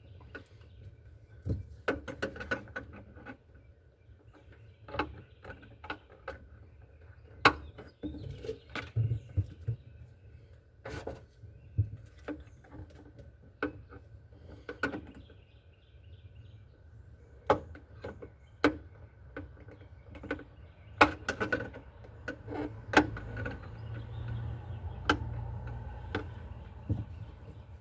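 Irregular clicks, taps and knocks of hand tools and metal parts being handled while working on a car, over a faint steady hum.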